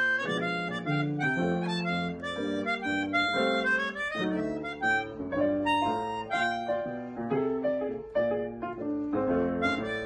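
Instrumental music: a melody of held notes moving over chords, several pitches sounding together with a reedy tone.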